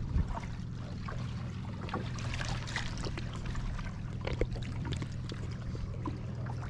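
Water splashing and trickling around a small bamboo-outrigger boat as it is pushed off from the shore, with scattered small knocks over a steady low rumble.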